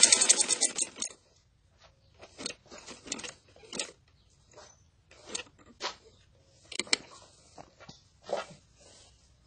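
Sewing machine stitching with a fast, even needle rhythm, stopping about a second in; then scattered rustling of cloth being handled and repositioned under the needle.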